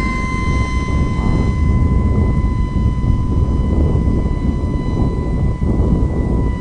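Electric FPV model plane's motor running at high power, a steady high whine over heavy rumbling wind noise.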